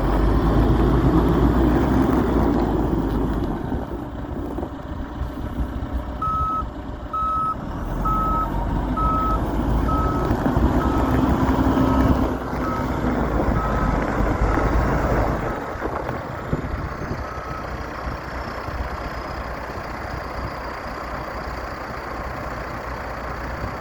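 John Deere 310SJ backhoe loader's diesel engine running, with its backup alarm beeping about once a second for roughly eleven seconds as the machine reverses; the beeps grow fainter. The low engine rumble drops off about two-thirds of the way in.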